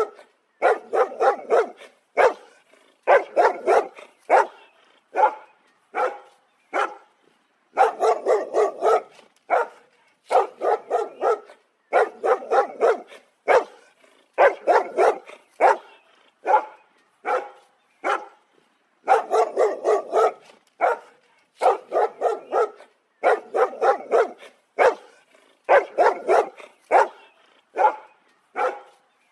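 A dog barking repeatedly in quick runs of several sharp barks, with short pauses between the runs.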